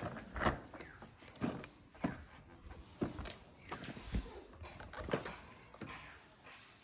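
Irregular light knocks and clatters of a broken plastic toy ride-on tricycle being pushed and handled on concrete, about one or two a second.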